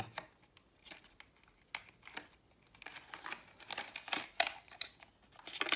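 Plastic packaging insert rustling and crinkling, with irregular small clicks and taps, as an RC speed controller is worked out of it. The handling gets louder about four seconds in and again near the end.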